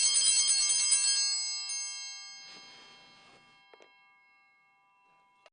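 A hand-held cluster of small brass Sanctus bells shaken once: a bright jangle of many bell tones that rings on and fades slowly over several seconds. It is the single ring that marks the priest's genuflection after the consecration of the host.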